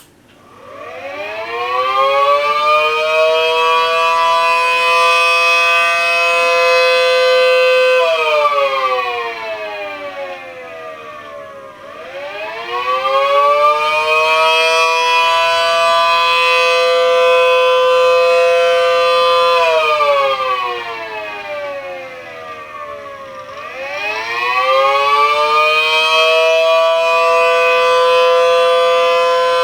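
Homemade 3D-printed mini ACA P10 tornado siren, a 12/9-port model, winding up from silence into a steady two-tone chord. Twice it winds part-way down and then back up to full pitch, in a slow wail.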